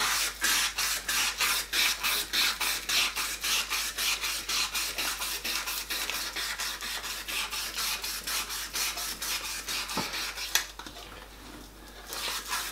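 Emery cloth rubbed back and forth lengthwise along a 303 stainless steel rod, a quick, even rasping of about five strokes a second, for a dull polished finish. There is a single knock about ten seconds in, then a short lull before the rubbing starts again near the end.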